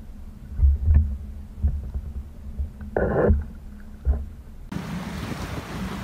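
Low thumps and knocks from a clear-bottomed canoe on the water, with a short hissing splash about three seconds in. A bit before the end it changes to a steady rush of churning water and wind behind a motorboat.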